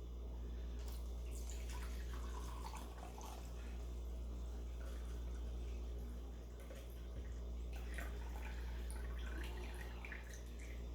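Melted candle wax being poured and dripping from a pot into a measuring cup, with small clinks and splashes, over a steady low hum.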